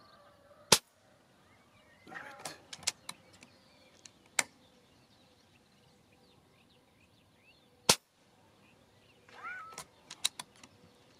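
Two sharp shots from a Reximex Throne Gen2 PCP air rifle firing 33-grain slugs, about seven seconds apart, with quieter clicks between them.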